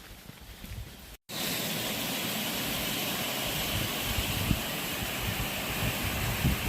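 Quiet outdoor air for about a second, then after a sudden cut a waterfall rushing steadily, loud and even, with a few low thumps.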